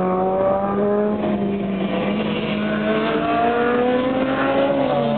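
Rotax two-stroke kart engine running hard at high revs. Its pitch climbs steadily over the last couple of seconds as the kart accelerates.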